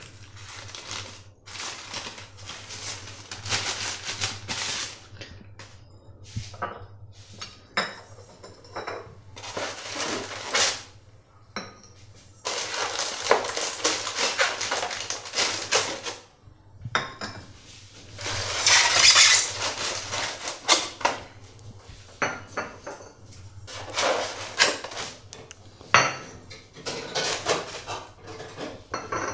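Ceramic cups, saucers and plates clinking and knocking as they are unpacked and set down one by one on a stone countertop, with longer stretches of rustling wrapping in between.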